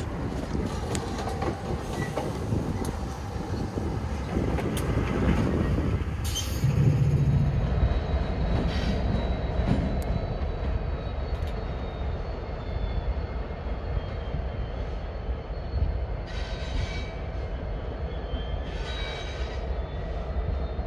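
Diesel freight locomotives running slowly through a rail yard, with a steady low engine rumble. In the first part the wheels click over the rail joints; later come faint, thin squeals of wheels on curving track.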